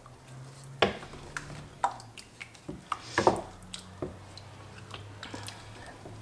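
Wooden spoon stirring thick bolognese sauce in a stainless steel pot: wet squelching with irregular knocks and scrapes of the spoon against the pot, about one a second.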